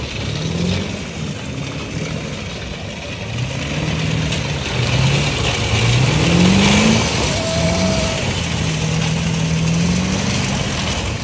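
Ford pickup truck's engine revving up and down several times during a burnout, with one long held rev near the end. Its rear tyres are gone, so the bare rims spin on the pavement under a steady hiss.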